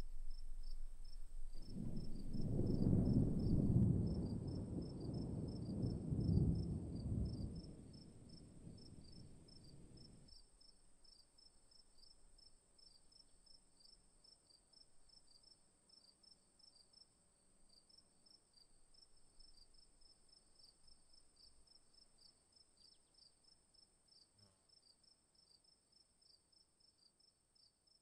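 Insects chirping in a steady, regular pulse, with a thin continuous high whine above it. For the first several seconds a louder low rumble sits underneath, then fades away about ten seconds in.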